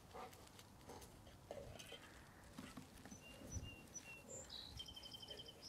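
Faint bird chirps: a few short high whistled notes starting about three seconds in, then a quick rapid trill near the end, over near-silent outdoor quiet with a few soft ticks.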